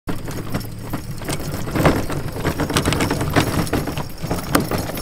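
A loaded sit-on-top kayak dragged across grass, the gear inside rattling and clattering in irregular clicks, over a steady low hum.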